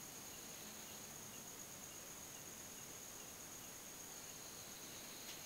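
Faint, steady high-pitched trill of crickets over a low hiss.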